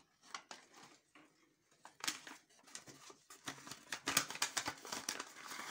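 Kraft paper bag rustling and crinkling as hands pull it off its clip and open it, in quick irregular crackles that get busier and louder after about two seconds.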